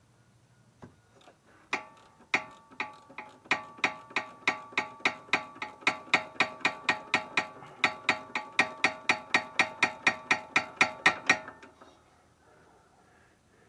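Hand ratchet socket wrench clicking in a steady run, about four clicks a second, each with a slight metallic ring, as it backs off a 14 mm nut on a sway bar end link. The clicking starts about two seconds in and stops near the end.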